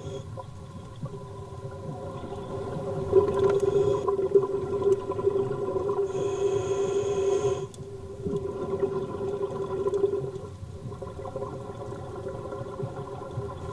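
Ambient music of held, droning tones whose chord shifts a couple of times.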